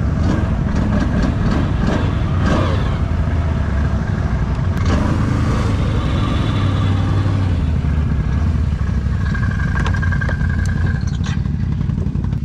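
Can-Am Outlander ATV engine running as the quad rides over sand, its revs rising and falling.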